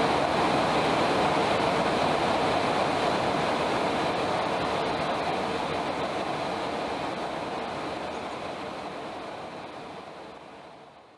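Steady jet aircraft noise, engines and rushing air, heard from inside a KC-135 Stratotanker in flight, fading away over the second half.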